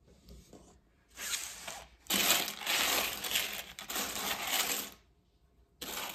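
Hands stirring and sifting a boxful of loose cardboard jigsaw puzzle pieces, a dense rattling clatter. It comes in three spells: briefly about a second in, then for about three seconds, and again near the end.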